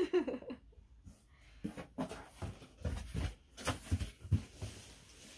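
Rustling and a run of soft, irregular knocks from a cardboard box being handled and its flaps folded shut.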